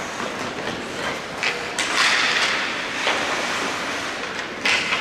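Ice hockey skate blades scraping and hissing on the ice as players skate and stop, in several surges; the longest starts about two seconds in and lasts about a second.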